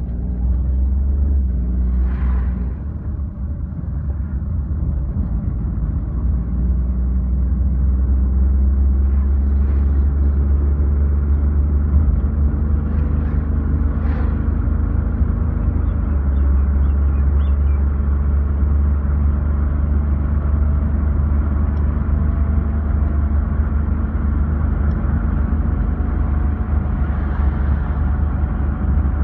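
Car engine and road rumble heard from inside the cabin while driving at a steady pace: a continuous low drone, with the engine note shifting slightly now and then.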